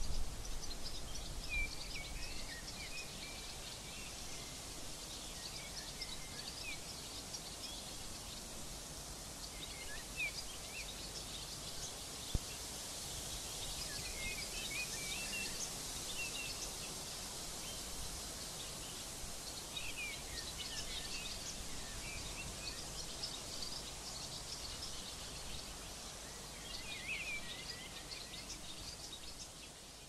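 Open-field ambience: small birds chirping on and off throughout over a steady high hiss. A low rumble sounds in the first second, and the ambience fades out at the end.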